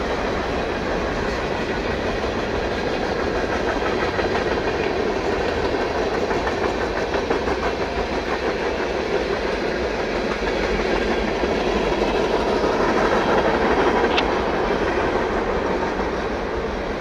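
Mixed freight train of boxcars, tank cars and open hopper cars rolling past, a steady rumble of steel wheels on rail, with a short high squeak about fourteen seconds in.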